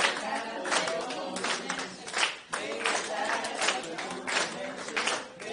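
A group of voices singing together, with hand claps keeping a steady beat of a little over one clap a second.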